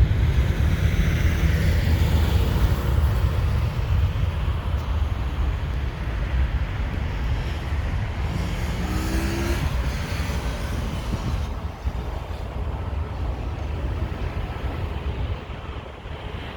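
Boeing 737 NG's CFM56-7B jet engines, a loud rumble that fades slowly as the aircraft moves away. A short pitched tone sounds briefly about halfway through.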